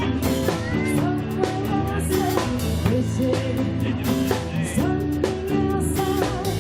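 Live band playing a 1970s cover song, with a drum kit keeping a steady beat under sustained guitar and keyboard-range notes.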